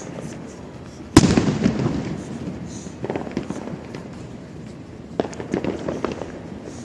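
Aerial fireworks: one loud boom about a second in that rolls away over a second or so, followed by scattered smaller crackling pops.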